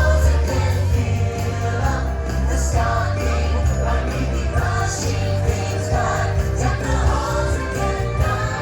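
Christmas parade show music over outdoor loudspeakers: a sung song with choir voices and jingle bells over a steady, heavy bass.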